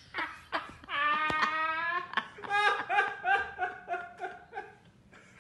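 A person laughing: one drawn-out note, then a run of short laughs, about four a second, that fade away.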